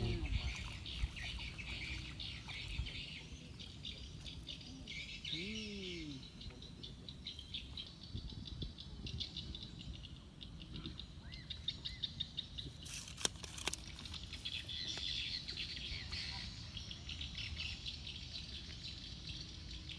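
Birds chirping and twittering, a dense, continuous chatter of small calls. A short low sound rises and falls in pitch about five seconds in, and a couple of sharp clicks come near the middle.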